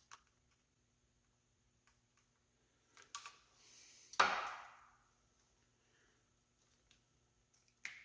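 Handling of wiring and motorcycle parts: a few light clicks, then one louder knock with a short scrape about four seconds in.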